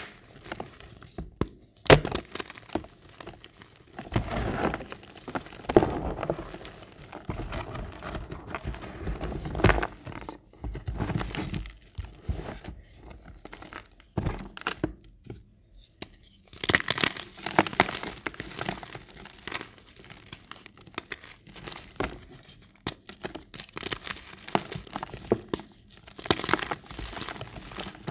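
Reformed gym chalk being crushed and crumbled by hand: irregular crunching and crackling with sharp cracks as chalk slabs break apart, and a short lull about halfway through.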